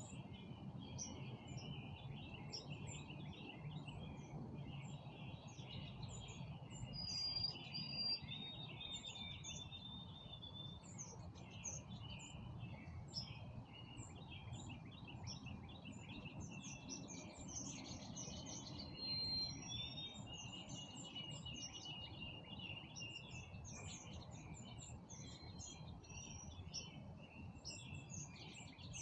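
Many songbirds chirping and singing at once, a dense overlapping chorus of short chirps and a few longer whistled notes, over a faint, steady low rumble.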